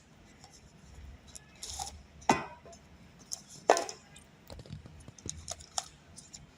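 A pocket Wi-Fi router's box being opened by hand: scattered light clicks and taps of the packaging and device being handled, with two sharper knocks about two seconds in and again near four seconds.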